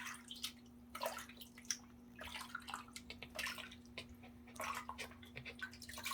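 Water in a small tub splashing and dripping in irregular little bursts as a dog shifts in a half-body bath, over a steady low hum.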